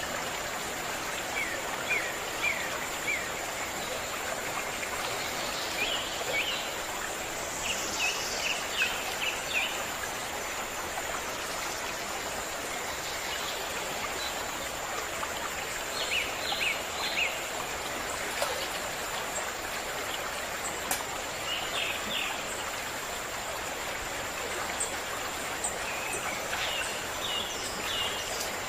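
A stream running steadily, with small birds giving short groups of quick chirps every few seconds.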